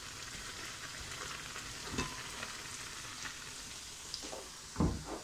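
Onions frying in a pan, a steady sizzling hiss, with a knock about two seconds in and a louder thump near the end.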